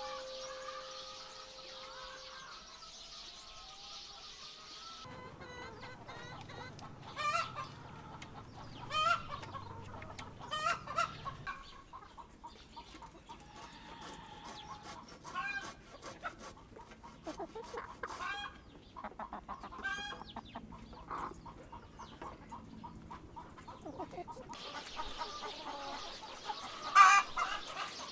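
A flock of hens clucking and calling in short, repeated notes while foraging, with a couple of louder calls near the end. A steady high hiss fills the first few seconds and returns near the end.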